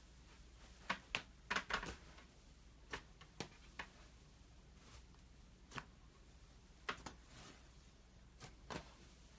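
Cloud slime being handled: short, soft crackles and pops as it is stretched and squished, a quick cluster about one to two seconds in, then single pops every second or so.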